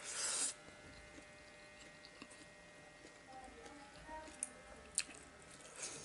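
Eating sounds of a person taking rice with his fingers: a short, loud noisy sound at the start as a handful goes into the mouth, then quiet chewing with a few sharp clicks in the second half.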